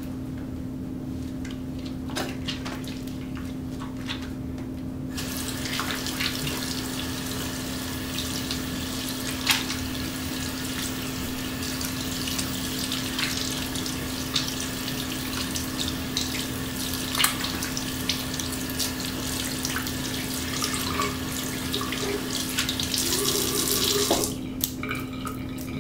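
Soapy hands rubbing together with a few small wet clicks, then a bathroom faucet turned on about five seconds in, water running over the hands into the basin as the lather is rinsed off. The water stops near the end. A steady low hum runs underneath throughout.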